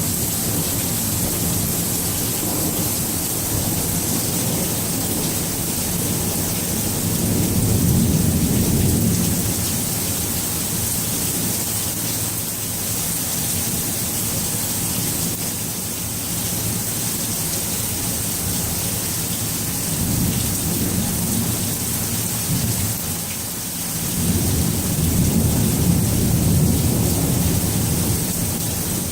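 Steady rain falling in a thunderstorm, with rolling thunder rumbling low beneath it. The rumbles swell three times: about a quarter of the way in, about two-thirds of the way in, and from near the end on.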